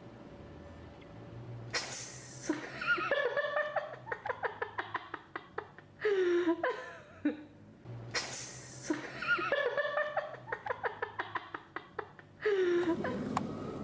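People laughing in rapid pulsing bouts. Each bout opens with a sudden loud, noisy burst, and the pattern comes about three times.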